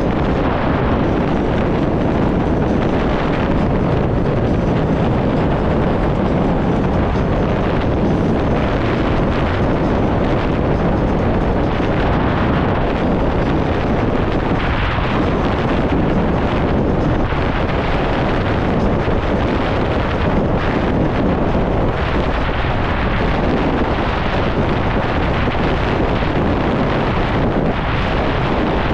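Loud, steady wind noise buffeting the microphone, the rush of air heard while riding an electric scooter.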